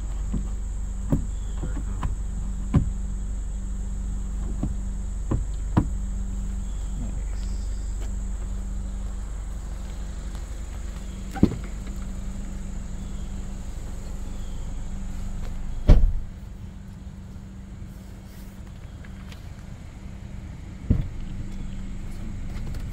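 Scattered clicks and knocks of a 2024 Hyundai Kona's interior and trim being handled, then a car door shutting with one loud thud about 16 seconds in. After the thud the outside background hum drops, as it does inside a closed cabin.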